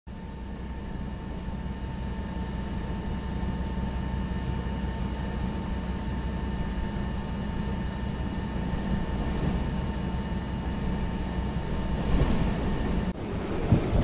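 Blizzard wind rushing against a vehicle, heard from inside the cabin as a steady low rumble with a faint steady whine from the vehicle. About thirteen seconds in, it cuts to harsher, gusting wind on the microphone.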